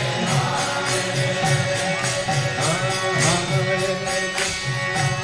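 Background devotional chant music: voices singing a mantra over held instrumental tones and a steady percussion beat.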